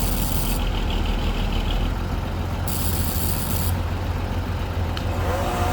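Crane's engine idling with a steady low rumble. A high hiss lasting about a second cuts in near the start and again about three seconds in.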